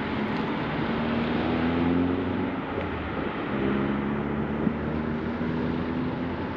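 Road traffic on a wide multi-lane street: passing cars with engine hum and tyre noise. It swells about two seconds in, then again from the middle to near the end.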